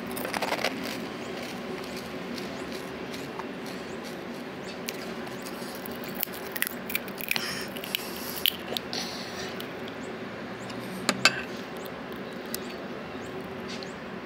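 Light clicks and taps of a spoon against a glass bowl of pani and of crisp puris being handled, with a louder double click late on, over a steady low hum.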